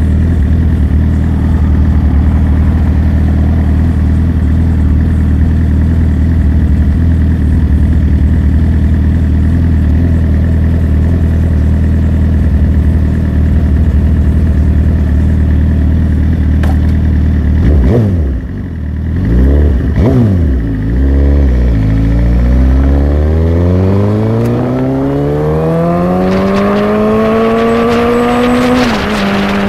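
Motorcycle engine idling steadily, then revved briefly a few times about two-thirds of the way in. It then pulls away with a long rising engine note, dropping in pitch with an upshift near the end.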